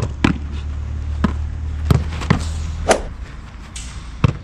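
Sharp slaps and thuds from a goalkeeper's gloves and a football, about seven at irregular intervals, over a steady low rumble that fades out about three seconds in.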